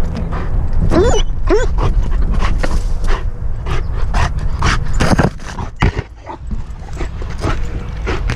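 Dog panting hard in quick, rhythmic breaths close to a helmet-mounted microphone as it runs, with two short high whines about a second in. Branches brush and rustle against the helmet near the end.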